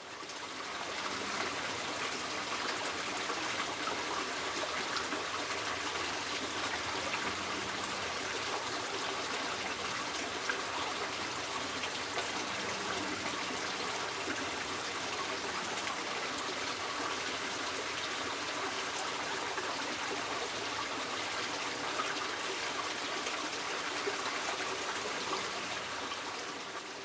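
Small creek trickling and flowing steadily, an even rush of running water that fades in at the start and out near the end.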